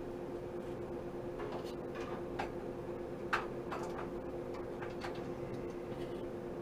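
Light, irregular clicks and taps of small hard parts being handled at a workbench, over a steady low hum.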